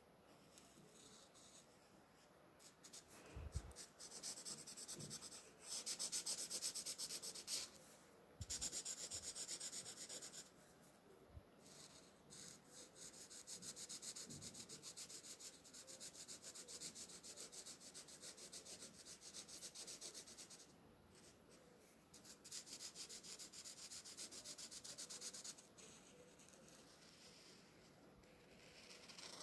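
Felt-tip marker colouring on paper: quick back-and-forth strokes, a soft hissing rub that comes in several spells of a few seconds each, with a couple of soft bumps early on the page.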